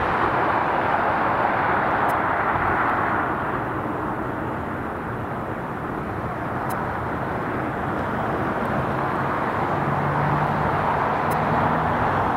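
Steady rushing roar of distant engines, easing a little about halfway and building again near the end.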